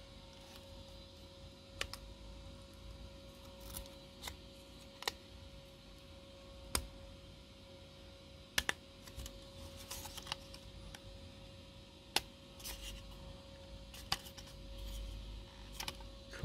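Wooden CubeSat frame pieces clicking and knocking as a sidewall's tabs are pushed into the friction-fit slots of the base plate. About a dozen scattered sharp taps come with soft handling noise between them, over a faint steady hum.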